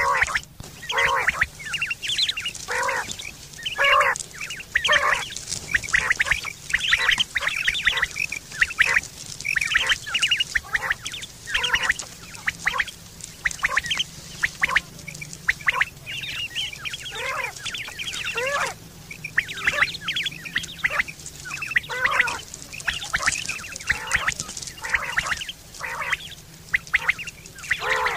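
Quail calling over and over in short pitched notes, about one or two a second without a break.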